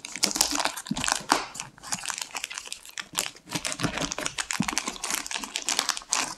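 Knife slitting a plastic poly mailer bag, the plastic crinkling and crackling as it is cut and pulled apart, with a short lull about halfway through.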